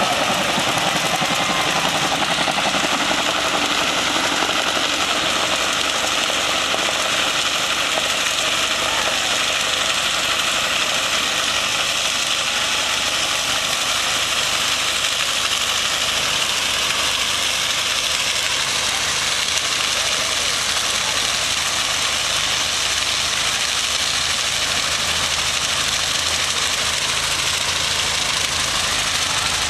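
Vehicle engine held at high revs through a long, steady burnout, the rear tyres spinning and screeching against the pavement.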